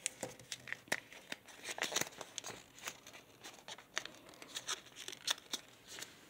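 Origami paper being folded and creased by hand, giving irregular crisp crinkles and crackles of paper, a few to several a second.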